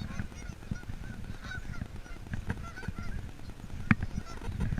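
A flock of Canada geese honking, many short calls overlapping one another, over a low rumble.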